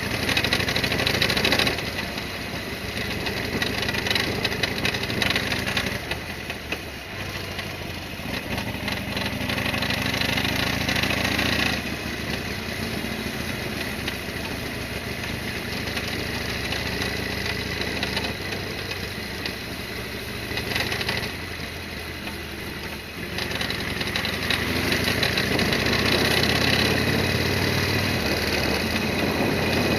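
Harley-Davidson Sportster XL1200R's air-cooled V-twin running on the road, its note dropping off and building again several times as the throttle is closed and opened.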